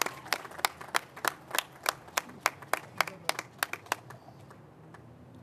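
Hands clapping in a steady rhythm, about three claps a second, stopping about four seconds in.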